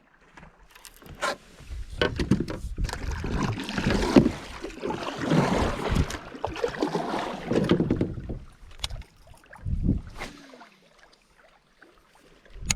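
Water sloshing and knocks against a kayak hull, in uneven spells with sharp knocks mixed in.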